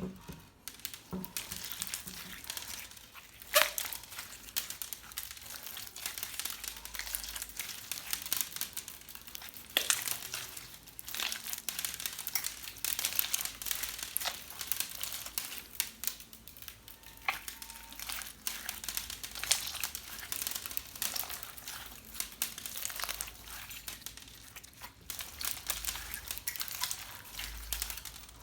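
Slime being kneaded and stretched by hand, with gem toys mixed in: a dense, continuous run of crackles and sharp clicks, with a few louder snaps.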